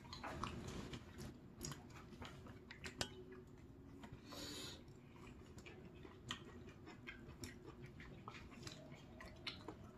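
Quiet eating of ramen-tteokbokki noodles: soft chewing with scattered light clicks and taps of utensils, and a brief hiss about four seconds in.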